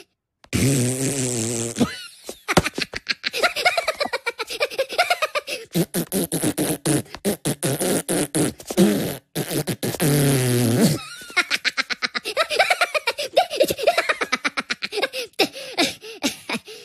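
Two cartoon Minions babbling in gibberish and giggling, blowing raspberries with the tongue out: a low buzzing raspberry about half a second in, a long rapid sputtering run in the middle, and another buzzing one about ten seconds in.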